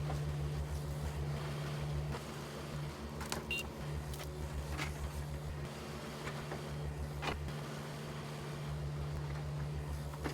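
Excavator's diesel engine running steadily, with a few sharp knocks and cracks over it.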